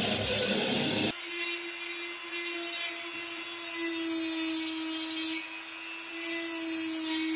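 Guitar music for about the first second, then a small corded electric rotary tool running at a steady whine while working a wooden carving. The grinding noise swells and eases as the bit bears on and lifts off the wood.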